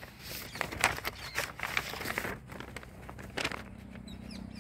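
Footsteps rustling and crunching through grass and undergrowth, a run of irregular crackles that thins out after about two and a half seconds.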